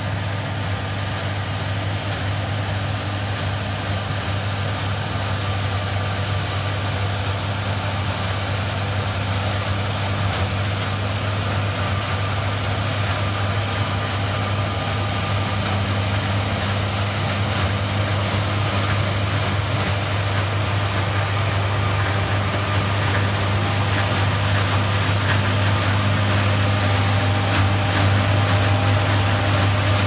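John Deere S780 combine harvester running steadily while harvesting rice, a heavy low engine drone with machinery noise above it. It grows gradually louder as the combine comes closer.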